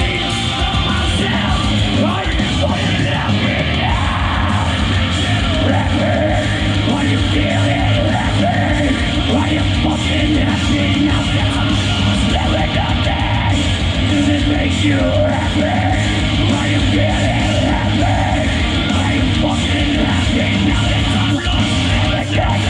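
Loud rock music from a band, with a singer's vocals over it, playing without a break.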